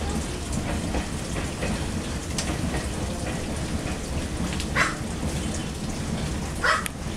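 Steady outdoor hiss with a low rumble, broken by a few short sharp taps; the loudest come about five and seven seconds in.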